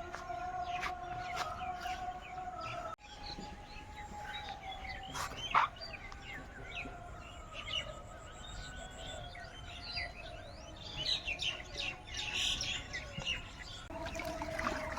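Wild birds chirping and calling, many short chirps and quick whistled sweeps overlapping, over a steady droning tone. The sound breaks off for an instant about three seconds in, then carries on.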